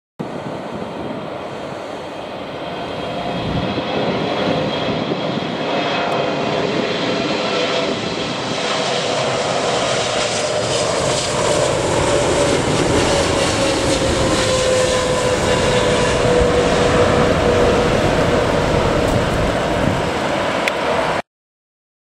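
Jet engines of a Boeing 777 freighter on final approach: a steady rushing engine noise that grows louder as the plane nears, with a whine that slides down in pitch as it passes. The sound cuts off suddenly near the end.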